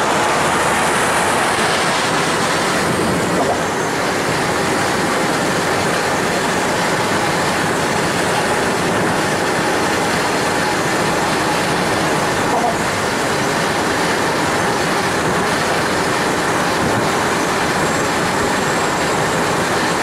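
Steady road and wind noise of a vehicle travelling at speed, an even rushing sound with no break or change.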